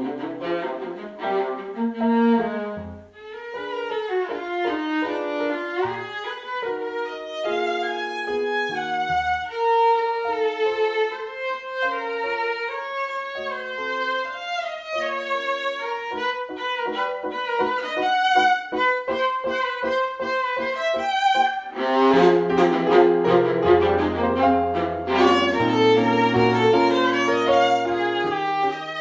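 Violin music: a bowed violin melody with runs of quick short notes, with a fuller, lower accompaniment joining about three-quarters of the way through.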